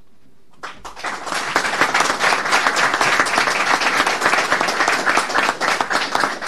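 A roomful of people applauding, many hands clapping together; it starts just under a second in after a brief quiet.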